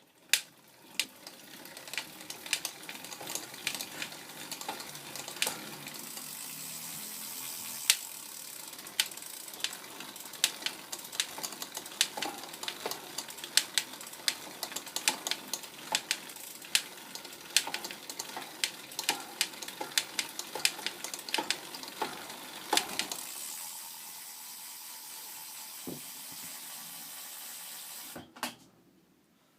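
Cannondale CAAD10 road bike being pedalled, its drivetrain running with a steady hiss while sharp clicks repeat about once or twice a second. The clicking comes from around the BB30 bottom bracket and persists after every other part and the pedals were retightened: the owner puts it down to the BB30's known noise problem.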